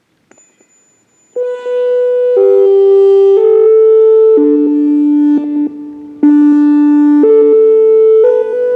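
ATI HPSS-32R high-power speaker siren playing its alert chimes: loud, sustained tones about a second each, four notes stepping down and up, a short break, then a second four-note phrase. A faint click comes just before the first note.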